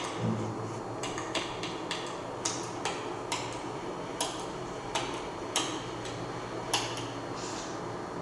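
A series of short, sharp clicks or taps, irregularly spaced at roughly two a second, over a faint low hum.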